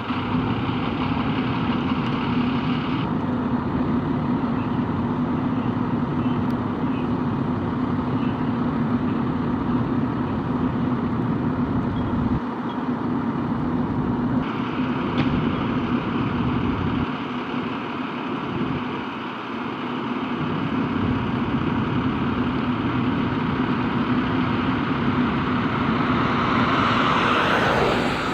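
Diesel engine of a Sutphen Monarch aerial platform fire truck running with a steady low drone. A rush that grows louder and brighter comes near the end.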